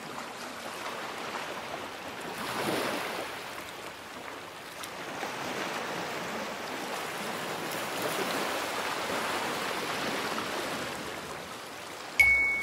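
Ocean surf: a steady wash of waves that swells and ebbs. Near the end a bright chime strikes once and rings on.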